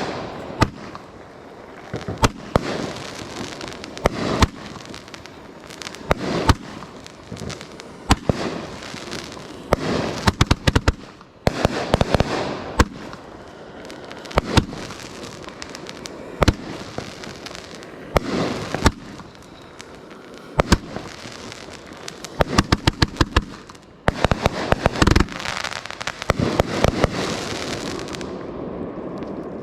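A 33-shot 500-gram multi-shot fireworks cake firing: rapid volleys of sharp shot reports, with crackling and rumbling of the bursting shells between them. The firing dies away near the end.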